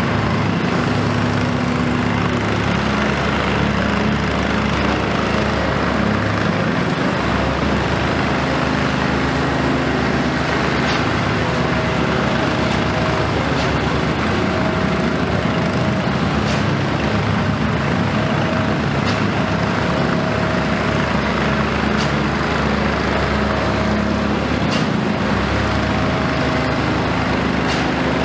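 Komatsu PC210 hydraulic excavator's diesel engine running steadily under load, with a short mid-pitched tone repeating on and off through the second half and a few faint sharp clicks.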